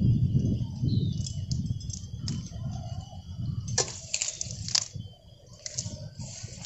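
Cast net being handled and gathered by hand: the mesh rustles, with scattered sharp clicks and clinks from its weighted edge, over a low rumble.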